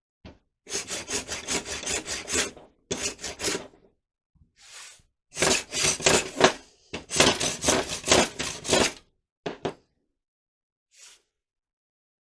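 Rapid back-and-forth strokes of hand rubbing, working off excess glue. The strokes come in about five runs, each a second or two long, with short pauses between them.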